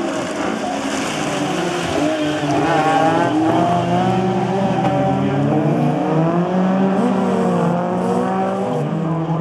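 A pack of rallycross cars racing together, several engines revving and dropping in pitch at once as they brake, shift and accelerate through a corner.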